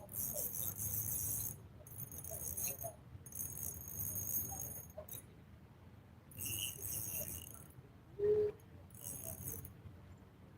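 Spinning fishing reel buzzing in about five short bursts as a hooked trout pulls line off a drag set too loose. There is a brief low sound about eight seconds in.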